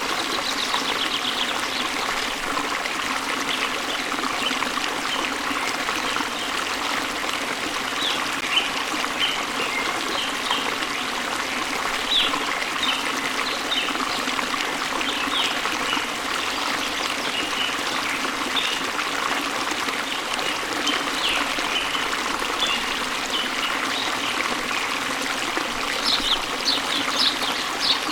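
Waterfall splashing into a stream in a steady rush, with birds chirping now and then over it and a quick run of chirps near the end.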